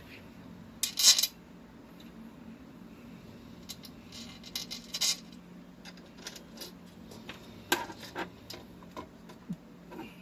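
Small metal bed-leveling hardware (springs, screws and knobs) clinking and clattering as it is handled, in short separate bursts with the loudest about a second in, over a faint steady hum.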